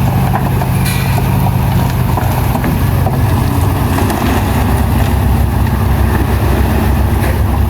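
Heavy earthmoving machine's diesel engine running steadily, its pitch dropping about two and a half seconds in, with a brief knock about a second in.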